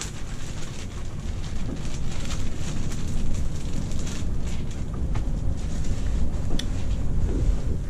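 Uneven low rumble of wind buffeting the microphone, with a few light clicks and scrapes of a spoon working dough in a plastic mixing bowl.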